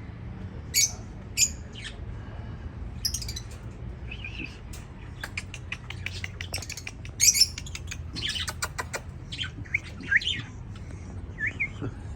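Birds giving short, high chirps and squawks at irregular intervals, with the loudest burst about seven seconds in, over a steady low hum.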